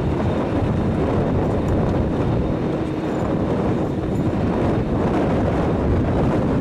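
Strong wind buffeting the microphone in uneven gusts, over the steady rumble and faint whine of the Airbus A300-600ST Beluga's turbofan engines as it taxis at low power.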